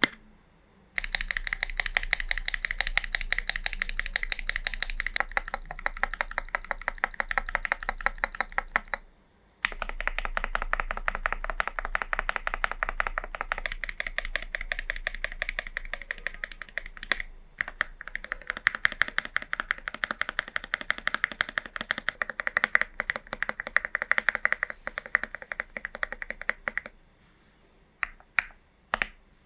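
Typing on a Glorious GMMK Pro mechanical keyboard (tape mod, case foam removed) with stock switches under polished SA keycaps: fast continuous keystrokes, broken by a short pause about nine seconds in, thinning to a few separate keystrokes near the end.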